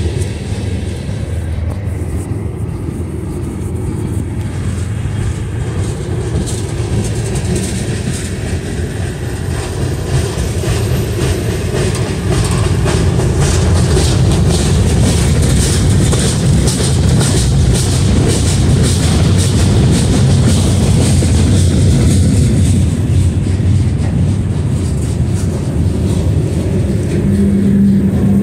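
Cars of a mixed manifest freight train (tank cars, boxcars, a centerbeam flatcar, covered hoppers) rolling past close by. Steel wheels on rail make a steady rumble with rapid clickety-clack over the rail joints, loudest through the middle.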